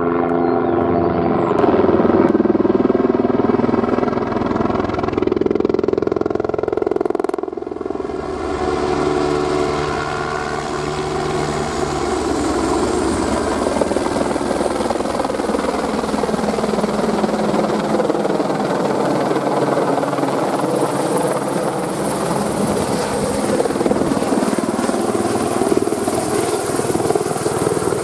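Light turbine helicopter flying low overhead and hovering: a steady rotor and engine roar with a thin high turbine whine that rises in pitch about halfway through and then holds.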